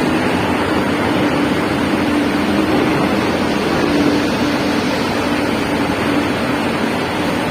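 A bus running steadily, its engine giving a constant low hum under a loud, even rushing noise.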